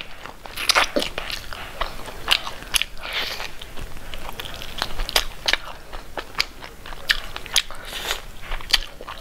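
Close-miked eating: a person biting and chewing meat off a bone, with many short, sharp mouth clicks at an irregular pace.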